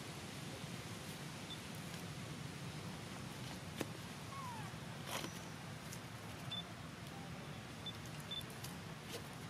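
Faint crackle of a dry leaf handled by a baby macaque, a few sharp clicks over a steady hiss, with one short falling animal squeak about four seconds in.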